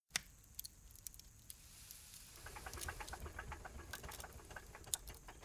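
Faint low rumble of a moving vehicle, heard from inside, with scattered light clicks and taps, most frequent around the middle.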